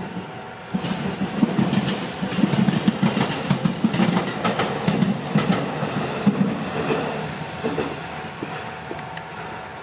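Meitetsu Bisai Line electric train passing over the level crossing, its wheels clattering in quick irregular clicks over the rail joints. It comes in loud about a second in and dies away over the last few seconds.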